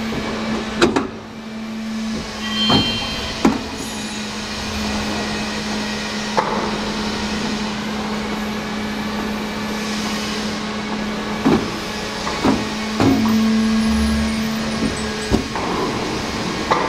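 Water heater tank two-piece assembly machine running: a steady machine hum over general factory noise, with a scattering of short, sharp clanks and knocks.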